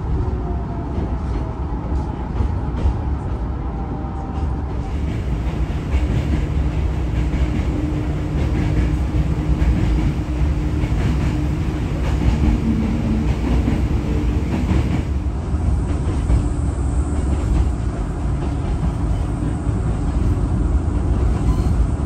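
Hakone Tozan Railway electric train running, heard from inside the carriage: a steady low rumble of wheels on the track. It grows a little louder and brighter about five seconds in.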